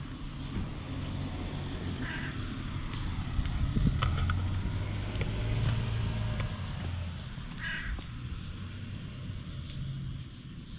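Low, steady motor hum that swells to its loudest a few seconds in and then fades, with two short calls about two seconds in and again near eight seconds, and a brief high chirp near the end.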